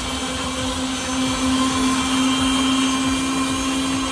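Electric blender motor running steadily with a constant hum, churning a jar of coconut shake mix.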